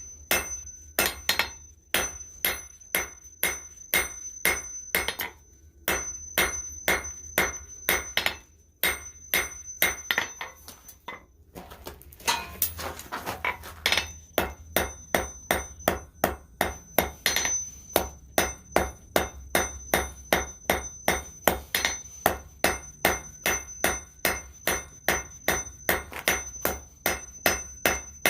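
Hand hammer striking steel on an anvil in a steady rhythm of about three blows a second, each with a bright ring from the anvil. There are short pauses between runs, and a brief break about eleven seconds in.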